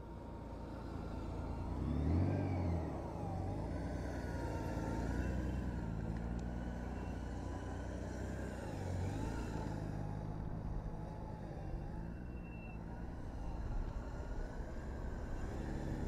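Large touring motorcycle's engine running at low speed through tight slow-speed turns, rising briefly with throttle about two seconds in and again around nine seconds in.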